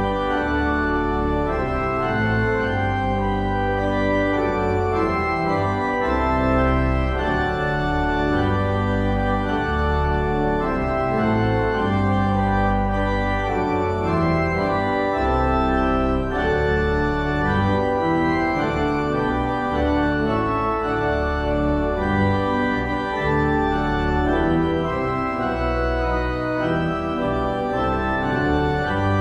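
Organ playing slow, held chords over deep bass notes, the chords changing every second or two.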